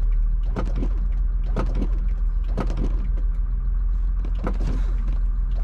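A car running steadily with a low hum, with a sharp knock or click about once a second, while the BMW E36's sticking power window is being worked and pushed.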